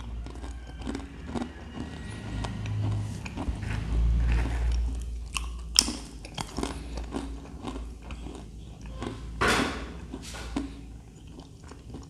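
A man biting into and chewing a crunchy side dish close to the microphone, with irregular sharp crunches, the loudest a little before halfway and again about three quarters of the way in.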